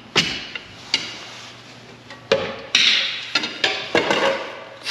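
Hammer blows on metal: about eight sharp, irregularly spaced strikes, each with a short ring.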